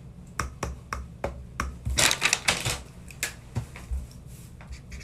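A run of sharp clicks, about three a second, with a denser cluster of louder, scratchier clicks about two seconds in.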